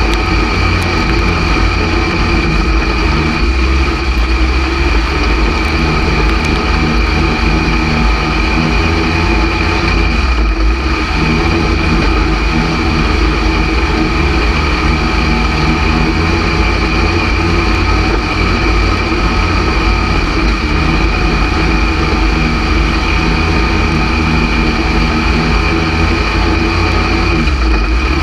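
Dirt-track stock car engine running hard at race speed, heard from inside the cockpit, with a brief dip about ten seconds in. The engine is one the owner says is down on power and cutting out on the straightaways.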